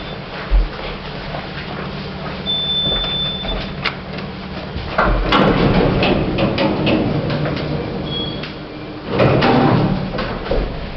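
Becker hydraulic service lift's doors sliding open and then closed, the two louder stretches about 5 seconds in and about 9 seconds in, over a steady low hum, with scattered clicks and one high steady beep a little over 2 seconds in.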